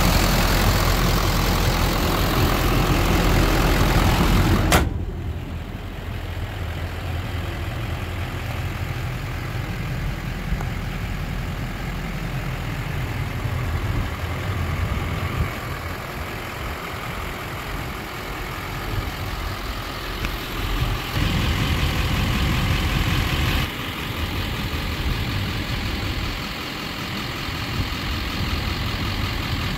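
Chevrolet 6.6L Duramax turbo-diesel V8 idling steadily under the open hood, then a single sharp bang about five seconds in as the hood is shut, after which the idle carries on quieter and duller.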